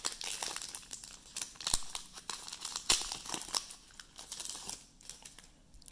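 Foil wrapper of a Panini Select Draft Picks trading-card pack being torn open and peeled back by hand: a run of sharp crinkles and crackles that thins out near the end.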